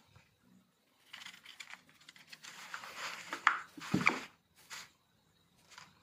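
Wooden modelling tool scraping and rubbing over the surface of a clay figure: an irregular run of scratchy strokes, loudest about three to four seconds in.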